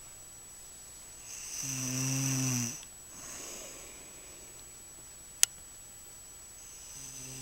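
A person snoring: one long, loud, buzzing snore about a second and a half in, followed by a softer breath. A single sharp click comes a few seconds later, and the next snore begins near the end.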